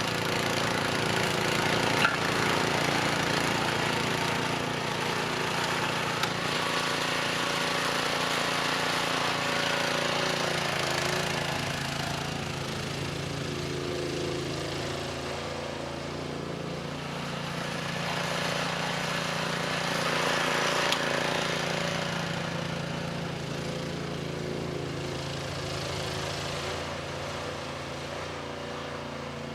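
Cub Cadet 2X 524 SWE two-stage snowblower running steadily under load in heavy wet snow, its engine note over the hiss of snow being thrown, swelling and fading slightly as the machine moves. Two short sharp knocks, about two seconds in and again near the twenty-first second.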